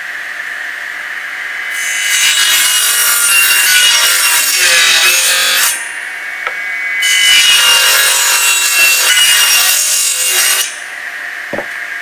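Table saw running with a steady whine, cutting through two wooden boards: the first cut starts about two seconds in and lasts about four seconds, the second runs from about seven to ten and a half seconds in, with the blade spinning free between and after them. A short thump near the end.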